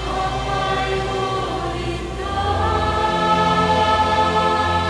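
Mixed choir singing long held chords, moving to a new chord that swells louder a little over two seconds in.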